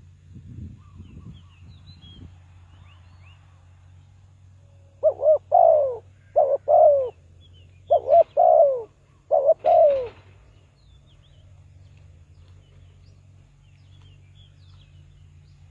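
Spotted dove cooing: four phrases in about five seconds, each of two short notes and a longer falling coo, starting about five seconds in. Faint chirps of small birds are heard in the background.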